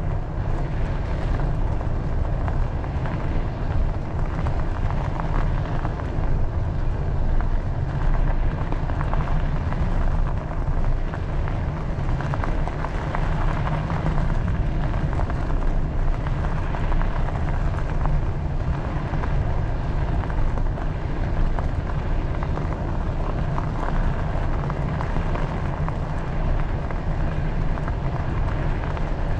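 Wind buffeting the microphone of a camera on a moving bicycle: a steady, fluctuating low rumble that runs without a break.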